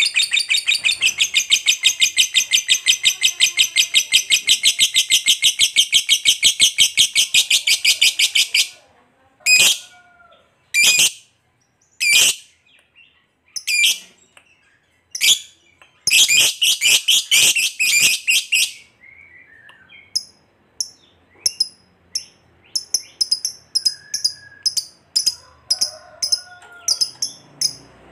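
Lovebird's long, rapid chattering trill (ngekek panjang): a fast, even run of shrill notes lasting about eight seconds. It is followed by single sharp shrieks about a second apart, a second, shorter trill of a couple of seconds, and then fainter quick chirps.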